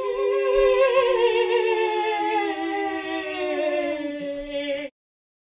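Humming voice holding one long note that slowly falls in pitch, cut off abruptly near the end.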